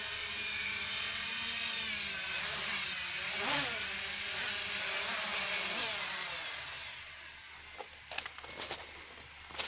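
MJX Bugs 3 quadcopter's brushless motors and propellers whining in flight, the pitch drifting up and down as it manoeuvres, then winding down about seven seconds in as it sets down on the water. A few short sharp clicks follow near the end.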